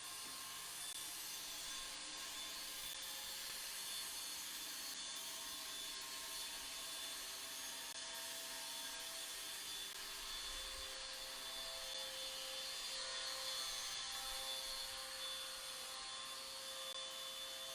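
A grinder running steadily, grinding out a tack weld on a steel pipe joint.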